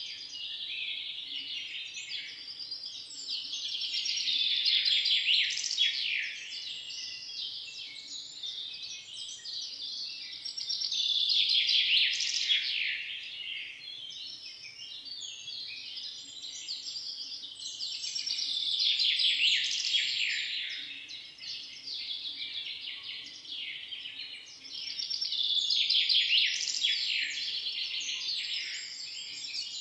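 Small songbirds chirping and twittering in a dense, rapid chorus that swells louder about every seven seconds.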